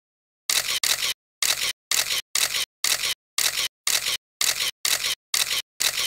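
Logo-animation sound effect: a string of short bursts of hissing noise, about two a second, each cutting off sharply into silence.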